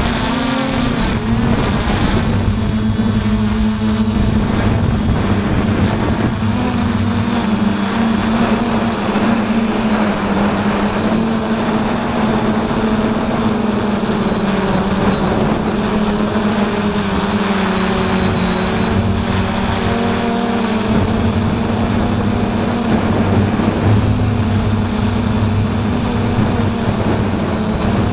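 DJI F450 Flamewheel quadcopter's four brushless motors and propellers, heard from its own onboard camera, running steadily in flight with a constant hum. Higher tones above the hum waver in pitch as the throttle shifts.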